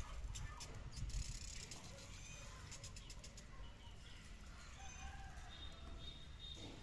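Faint outdoor garden ambience: a low steady rumble, a few short sharp clicks in the first two seconds, and thin chirps of distant birds in the second half.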